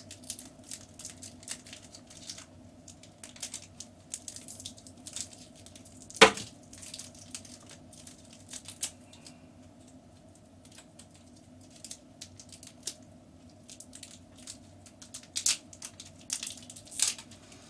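Small packet wrapper being unwrapped by hand: scattered crinkles and crackles, one sharp snap about six seconds in and a flurry of crinkling near the end, over a steady low hum.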